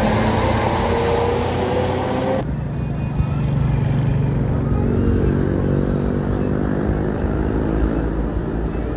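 A bus's multi-tone telolet horn sounding over its engine, cut off abruptly about two and a half seconds in. Then a bus engine runs with a deep rumble, its pitch rising slowly as it accelerates.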